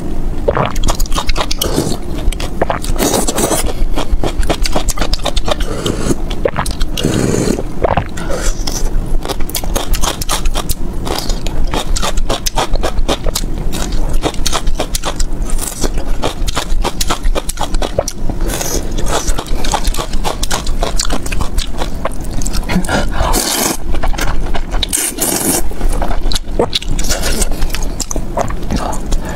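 Close-miked eating of spicy rice-noodle soup: broth sipped from a ladle, noodles slurped, and steady wet chewing with frequent lip smacks and clicks.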